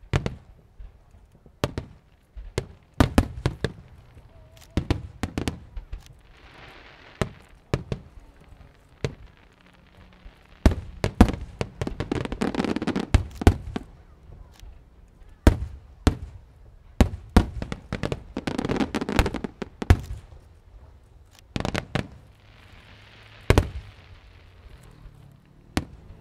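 Aerial fireworks going off in an irregular series of sharp bangs, sometimes several close together, with a few longer stretches of hiss between the bursts.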